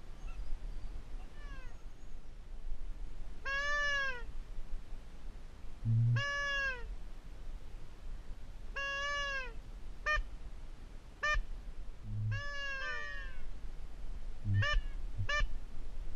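Duck calls: a series of clear, drawn-out calls that rise and then fall in pitch, repeated every couple of seconds. The later calls are short and clipped. Steady wind noise runs underneath.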